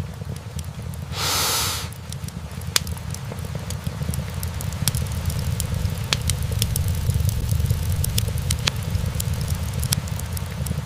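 Wood fire burning in a fireplace: logs crackling with many scattered sharp pops over a steady low rumble of the flames. A short, loud hiss from the fire comes about a second in.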